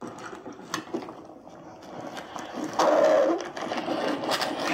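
Playback from a handheld digital voice recorder of audio it picked up inside a backpack while its owner walked: muffled rustling with scattered bumps and clicks. About three seconds in comes a louder, lower sound, heard as a growl, which the investigators say seemed to come from inside the bag and cannot explain.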